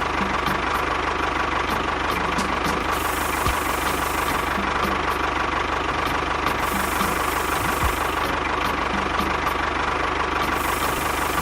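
A small motor on a homemade mini bulldozer running steadily, with a fast even knock and a steady high hum.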